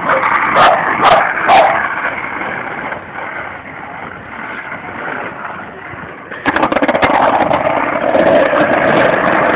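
A dog barking several times in quick succession in the first couple of seconds. About six and a half seconds in, a loud, rough rattling rumble starts suddenly and keeps going: skateboard wheels rolling over rough asphalt.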